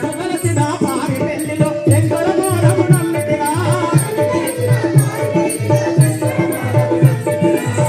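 Live folk-drama music: a singer's voice over a dholak beat of about two strokes a second, with jingling rattle-like percussion on every beat.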